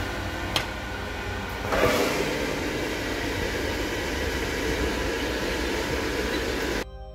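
Air fryer's fan running with a steady rushing noise, a click just after the start and the noise swelling louder about two seconds in; it cuts off abruptly near the end.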